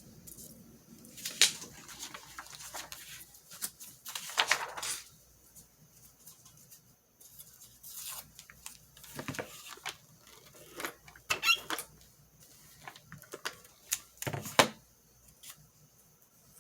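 Paper and tape being handled at a craft table: irregular crinkling and rustling, with a few sharp taps and short scratchy tearing sounds, the sharpest about a second and a half in and near the end.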